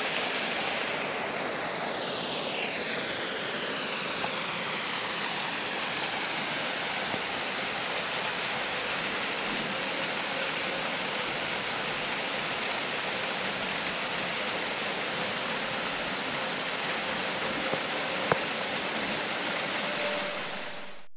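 Creek water rushing over a partly frozen waterfall: a steady, even wash of falling water. A single sharp click sounds near the end, and then the sound fades out.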